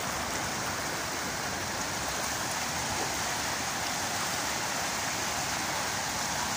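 Fast-flowing floodwater rushing and churning: a steady, even rushing noise.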